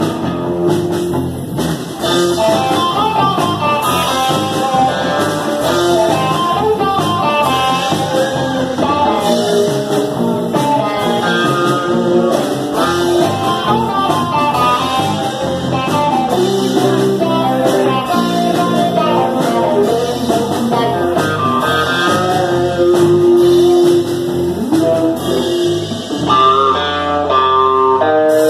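Live blues-rock band playing through amplifiers: an electric guitar takes the lead with single melodic notes over bass guitar and drums, ending in a quick run of notes near the end.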